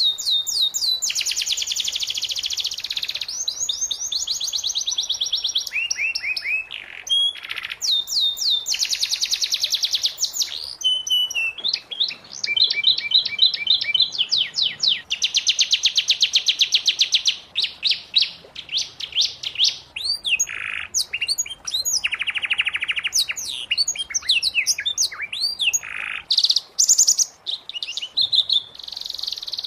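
Domestic canary singing: a continuous song of fast trills and rapidly repeated high notes in runs of a second or two, broken by short pauses and mixed with swooping whistled notes.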